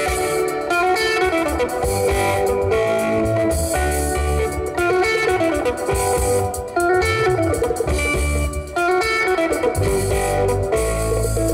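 Live band playing: electric guitar lines over bass guitar and drums.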